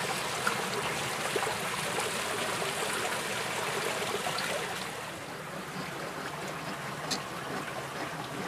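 Muddy water running steadily down a plastic-lined wooden sluice box and spilling over a carpet mat, fed by a hose. The flow sounds a little quieter and duller about five seconds in.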